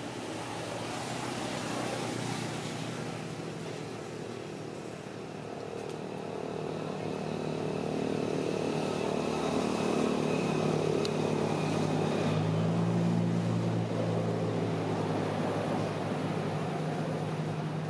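A motor engine running steadily in the background, its hum growing louder about halfway through.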